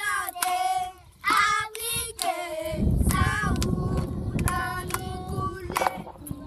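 A group of children singing together, with some hand clapping. Partway through, a low rumble on the microphone comes in under the singing.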